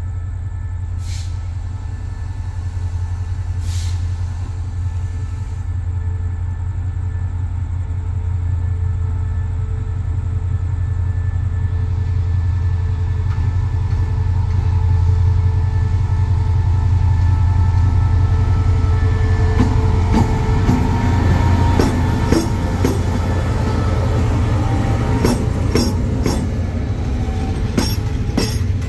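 Diesel locomotive hauling a passenger train out of a station: a deep, steady engine drone grows louder as it comes up and passes. From about twenty seconds in, the carriages roll by with wheels clacking over rail joints and some wheel squeal.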